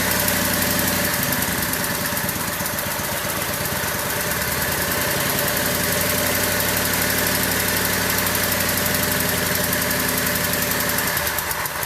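Craftsman lawn tractor's small gasoline engine idling steadily, newly revived with a rebuilt carburetor and a new fuel pump. It cuts off near the end.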